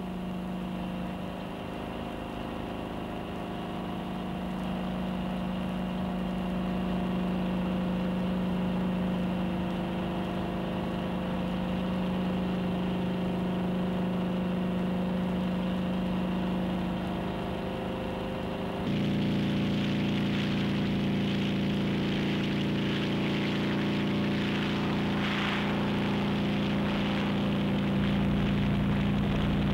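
Helicopter engine and rotor running, a steady droning hum. About two-thirds of the way through it changes abruptly to a louder, harsher drone.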